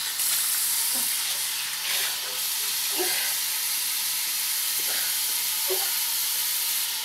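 Steady hiss with a faint low hum underneath, and a few faint short sounds near 1, 3 and 6 seconds in.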